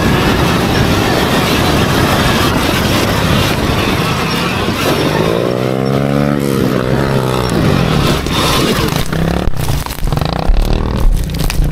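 Surron Ultra Bee electric dirt bike climbing a steep dirt hill in throttle mode 3, sport mode: a loud steady rushing noise, with a pitched whine that rises and then falls about five seconds in, and a run of sharp knocks and clatter near the end.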